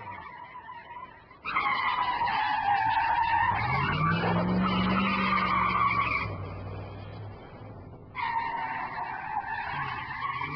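Car tyres squealing in two skids. A high screech starts suddenly about a second and a half in, runs for about four seconds with an engine note rising under it, then fades away; a second squeal starts suddenly about eight seconds in.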